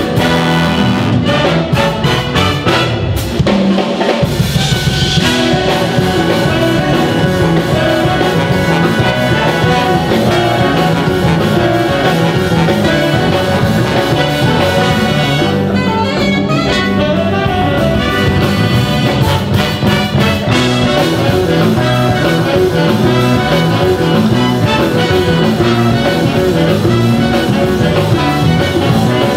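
Big band playing live, with trumpets and trombones over drum kit.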